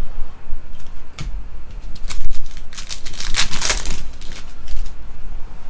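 The plastic-foil wrapper of a Panini Prizm football hobby pack being torn open and crinkled by hand, with a few sharp clicks first and a dense run of crackling about two to four seconds in. A steady low rumble sits underneath.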